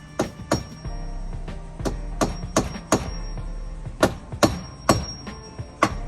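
Hammer blows, about ten sharp strikes in quick runs of three or four at roughly three a second, some leaving a brief high ring. Music plays steadily underneath.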